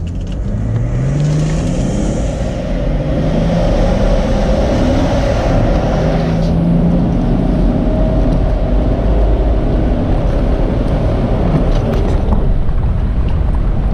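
A stage 1 remapped, straight-piped BMW 530d's 3.0-litre turbodiesel straight-six under hard acceleration from a standstill in sport mode, heard from inside the cabin. The engine note rises as it pulls and drops back at the automatic gear changes, over a heavy low rumble.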